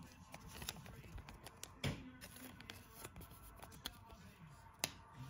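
Faint handling of a Pokémon trading card in the fingers: scattered light clicks and taps, the loudest about two seconds in and again near the end.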